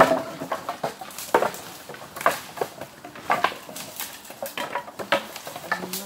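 Wood being chopped by hand: irregular sharp knocks, roughly once a second, about eight strikes in all.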